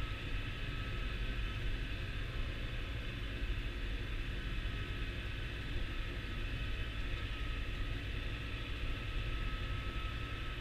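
Massey Ferguson 6480 tractor's six-cylinder diesel engine running steadily under way, a constant low rumble with a thin steady whine above it.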